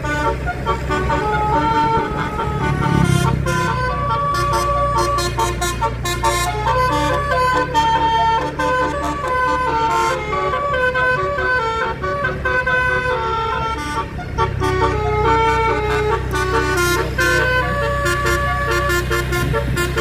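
Indonesian bus 'telolet' multi-tone horn playing a tune of short notes stepping up and down in pitch, over the steady drone of the bus engine.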